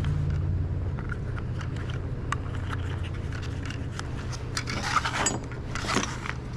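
Small plastic clicks, rattles and scrapes of a Stihl HS56 hedge trimmer's orange starter cover and recoil pulley being handled as a new pull rope is threaded through, with louder scraping and rustling about five seconds in and again at six. A steady low hum runs underneath.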